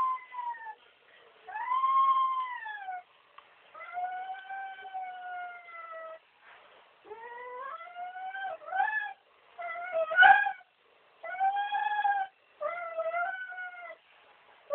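A dog whining in a string of about eight long, high-pitched cries, many rising and then falling in pitch, with gaps between them. The loudest, sharpest cry comes about two-thirds of the way through.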